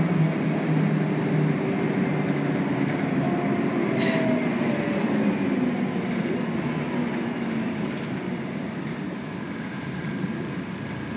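Inside a Scania L113CRB bus under way: its rear-mounted 11-litre six-cylinder turbo CNG engine and ZF automatic gearbox running over road noise, the engine note sliding down and the sound gradually getting quieter. A sharp click about four seconds in.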